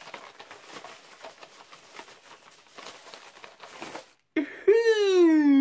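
Light crinkling and rustling of plastic toy packaging being handled. After a brief cut, a loud, drawn-out wordless vocal note begins near the end, sliding slowly down in pitch.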